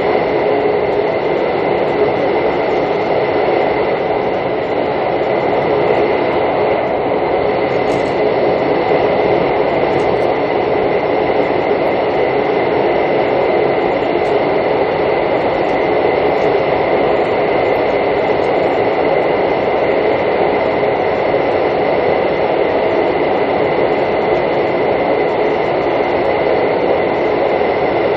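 Steady running noise inside a Mugunghwa-ho passenger car travelling at speed: an even rumble of wheels on rail with a constant high thin tone above it.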